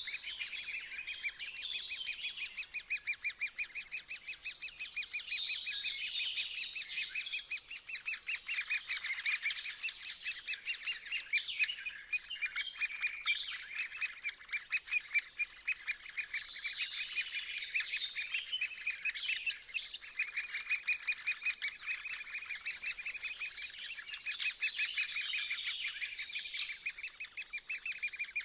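Woodpeckers calling from a nest hole in a tree trunk: a continuous stream of rapid, high-pitched chirps repeated many times a second, swelling and easing in waves every few seconds.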